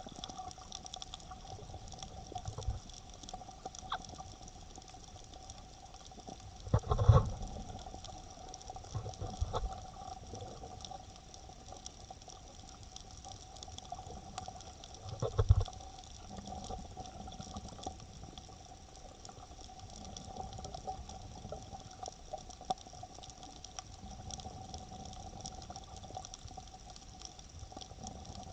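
Underwater sound picked up through a camera's dive case: a steady hiss with faint steady tones. Over it come a few muffled thumps and sloshes of water against the housing, the loudest about seven and fifteen seconds in.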